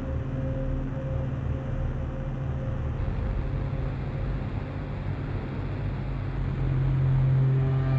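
Synthesizer drone through effects pedals: a held low hum with a fast fluttering pulse beneath it and a wash of hiss above. The texture thins about three seconds in, and the drone swells louder near the end.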